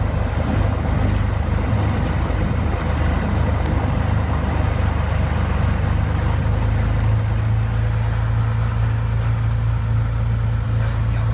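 Cessna 182's piston engine and propeller running at low taxi power, heard from inside the cabin as a steady low drone that grows a little stronger about two-thirds of the way in.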